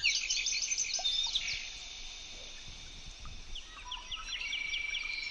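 Wild birds chirping and calling: quick runs of short high notes at the start and again about three and a half seconds in, with a faint steady background hiss.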